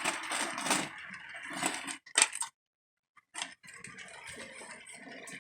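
HO scale model train rolling on the layout's track, its wheels clicking and rattling over the rails. The sound is busier and clickier for the first couple of seconds, cuts out completely for about half a second, then goes on as a fainter steady rattle with small clicks.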